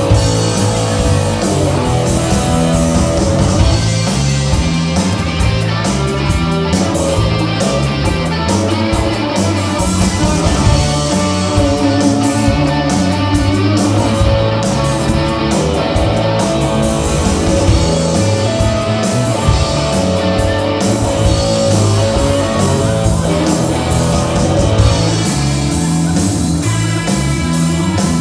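Live rock band playing loud, amplified electric guitars, bass and drum kit, heard from the audience.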